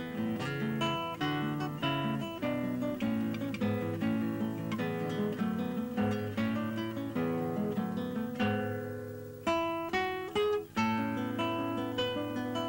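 Background music: acoustic guitar picked at a steady pace.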